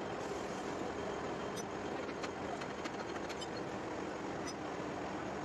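Metal lathe running with a centre drill in the tailstock drill chuck cutting a centre hole into the end face of a spinning metal blank: a steady machine hum with a few light scattered clicks.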